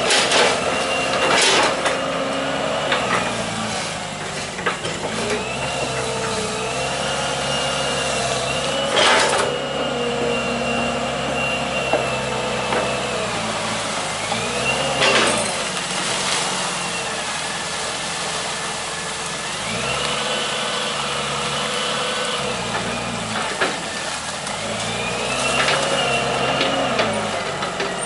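Hitachi EX120 hydraulic excavator's diesel engine working under load while digging and swinging mud, its pitch rising and falling again and again as the hydraulics are worked, with a high whine that follows it. A few sharp knocks, loudest about nine and fifteen seconds in.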